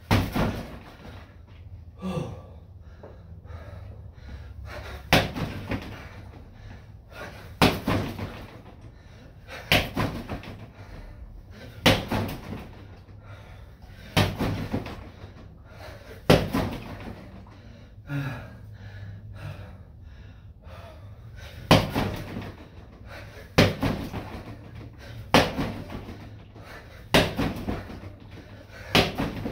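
Repeated kicks and strikes landing on a freestanding body-opponent training dummy, a sharp slap-thud roughly every two seconds, some followed closely by a second knock.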